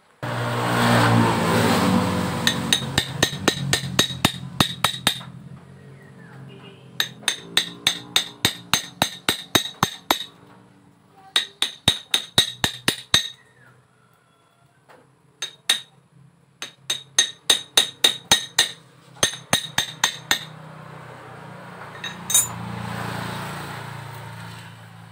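Runs of sharp metallic clicks, about five a second, as a knife blade is worked against a Honda motorcycle stator to strip out its burnt copper windings for rewinding. A passing motor vehicle is loudest in the first two seconds and swells again near the end.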